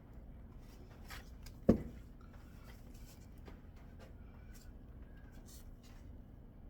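Small clicks and scrapes of coilover hardware being handled, with one sharp knock about a second and a half in.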